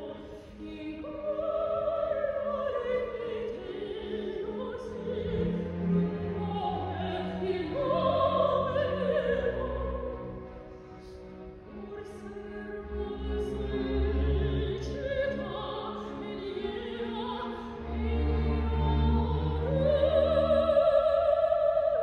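Operatic soprano singing an aria with a symphony orchestra accompanying. Long held notes swell and ease, building to a loud, sustained high note near the end.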